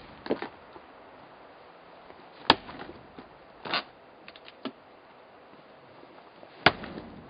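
An axe splitting firewood: two sharp chopping strikes, about two and a half seconds in and again near the end, with lighter knocks of wood in between.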